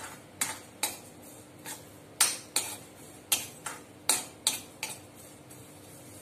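Metal spoon scraping and clinking against a steel wok while stirring sesame seeds as they dry-roast without oil. There are a dozen or so quick, irregular strokes, which stop about five seconds in.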